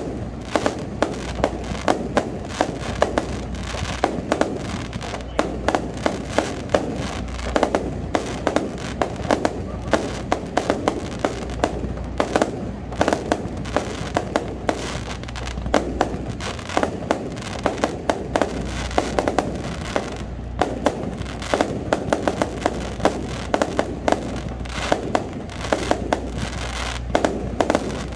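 Fireworks display heard up close: a dense, continuous run of bangs and crackles, several each second, over a steady low rumble.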